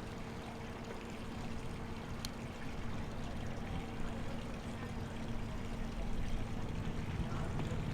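Steady water noise with a faint, even low hum underneath.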